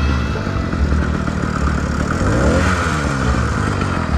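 Motorized bicycle's small engine running steadily at riding speed, with wind buffeting the microphone in a low, pulsing rumble.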